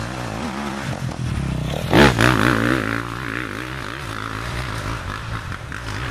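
A dirt bike engine revs up and down as the bike passes close by about two seconds in, where it is loudest. It keeps revving as it rides away along the trail.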